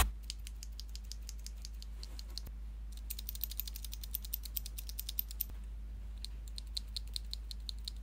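Loose mechanical keyboard switches pressed repeatedly between the fingers: quick, light plastic clicks, several a second, with a short pause about five and a half seconds in.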